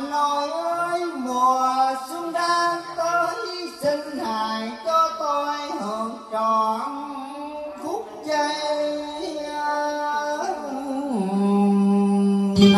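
A man singing a slow melody into a handheld microphone over karaoke backing music, amplified through a loudspeaker system, with long wavering held notes and a long steady note near the end.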